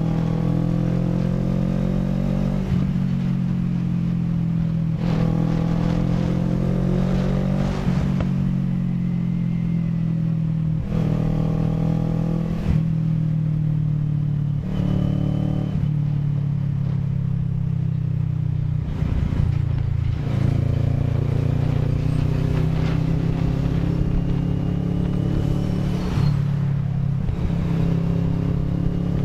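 CFMoto NK400 motorcycle's parallel-twin engine pulling through the gears as it is ridden, its pitch climbing and then dropping back at each upshift every two to three seconds, then running steadier with slow rises in the second half.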